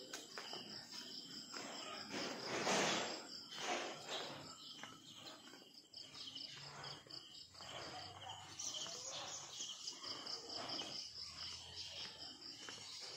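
Insects, likely crickets, trilling steadily in high, fast pulses, over footsteps and a brief louder rustle about two and a half seconds in.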